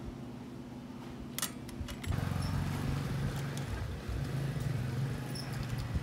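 A motor vehicle's engine running close by, a steady low hum that comes in about two seconds in. Just before it there are a few light clicks.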